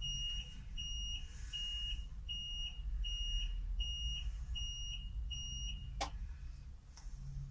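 Electronic warning beeper on the Carmix self-loading mixer's controls sounding a steady series of short high beeps, about one every three-quarters of a second, as the machine and its control computer are switched on; the beeping stops about six seconds in, followed by a sharp click. A low steady hum runs underneath.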